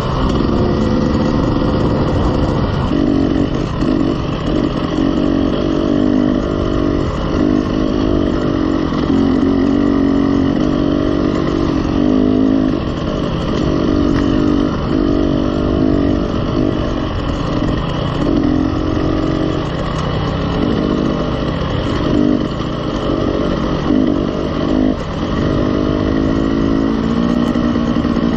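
KTM 300 two-stroke enduro dirt bike engine running under changing throttle, its note rising and falling every second or two as the rider rolls on and off. Steady wind and tyre noise from the gravel road lie underneath.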